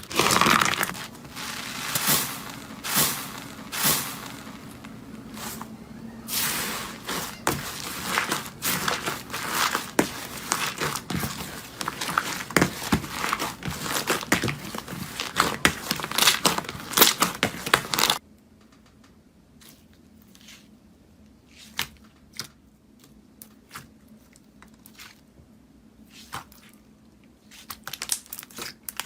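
Slime being squeezed and worked by hand, giving dense crackling and popping. Partway through it cuts abruptly to a much quieter stretch of scattered clicks, then the crackling picks up again near the end.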